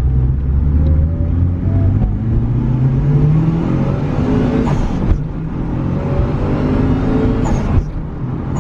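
Mitsubishi Lancer Evolution VI Tommi Mäkinen Edition's turbocharged 2.0-litre four-cylinder engine pulling hard under full acceleration. The engine note climbs, drops at an upshift about five seconds in, climbs again, and drops at a second upshift near the end.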